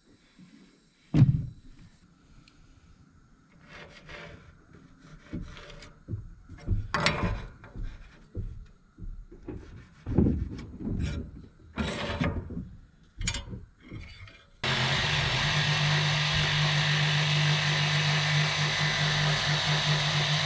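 Short knocks and scraping rubs as a fiber-cement trim board is handled and marked, with one sharp knock about a second in. About fourteen and a half seconds in, a jigsaw starts suddenly and runs steadily, cutting the trim board.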